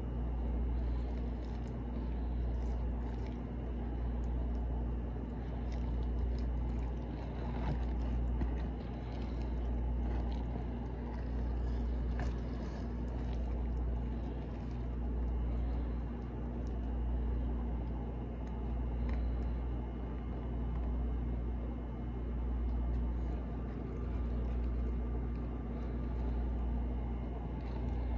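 A steady low machine hum that swells and fades about every two seconds, with faint scattered clicks over it.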